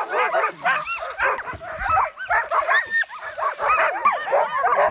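Many sled dogs (huskies) yipping, whining and barking over one another in a dense, continuous chorus, excited at feeding time.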